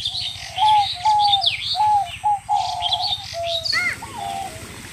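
Birds calling: a run of short whistled notes repeated about every half second, with quicker, higher chirps and twitters over them.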